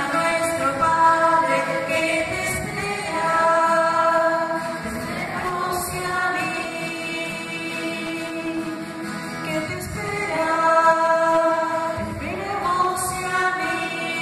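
Female voices singing together slowly, holding long notes, with music.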